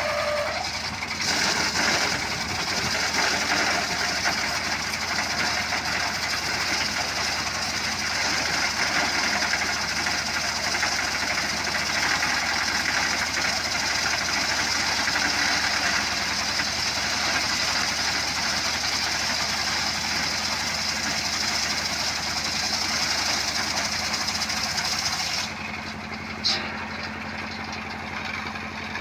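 Motorcycle-engine-driven wood-cutting saw running steadily with a loud high hiss. About 25 seconds in, the hiss drops away, leaving a lower steady hum, with a single sharp click a second later.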